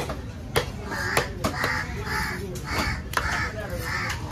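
A large knife scraping scales off a fish on a wooden block, in quick strokes with sharp clicks and taps. Crows cawing over it, about twice a second, from about a second in.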